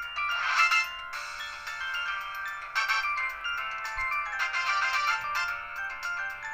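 Samsung SCH-F309 cell phone playing a polyphonic MIDI ringtone on its CMX synthesizer: a busy melody of many short synth notes, thin and with no bass.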